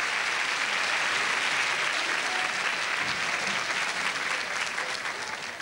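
Studio audience applauding, a dense steady clapping that tapers off near the end.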